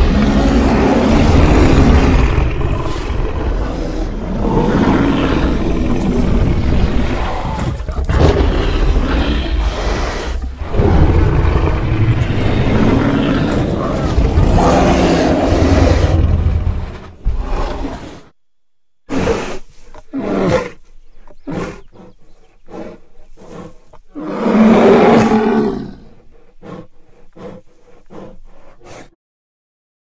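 Custom T. rex roar sound effect, layered from animal recordings such as lions, tigers, elephants and slowed-down wolf and cougar growls. One long continuous roar lasts about seventeen seconds, then after a short pause comes a string of short separate growls, with one longer, louder call about two-thirds of the way through.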